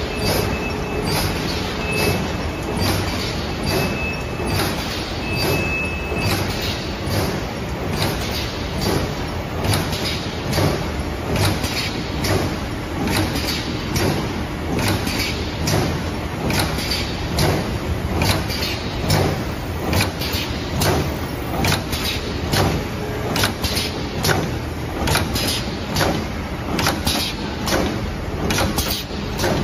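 Plastic bag making machine running: a steady mechanical clatter with a regular clack about one and a half times a second as its sealing and cutting head cycles.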